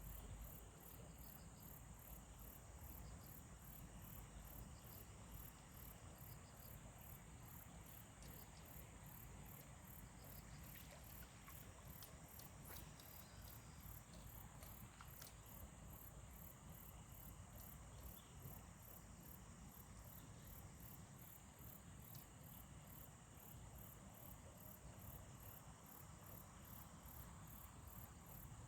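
Faint chirping of crickets or similar insects: a very high pulsing about twice a second over a steady high trill, with a few faint clicks partway through.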